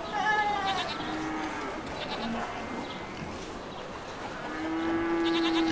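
Cattle mooing: a short call falling in pitch at the start, then a long, steady call near the end.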